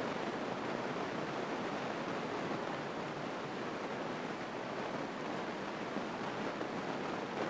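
Steady engine and airflow noise inside a light single-engine airplane in flight, heard as an even rushing hiss through the headset intercom.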